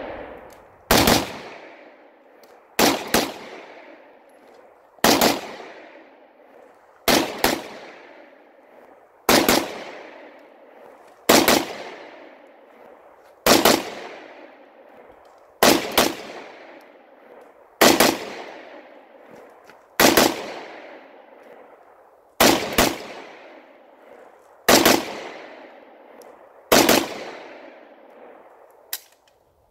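Kalashnikov carbine firing thirteen short bursts of two or three rounds, about two seconds apart. An echo follows each burst and fades over a second or so.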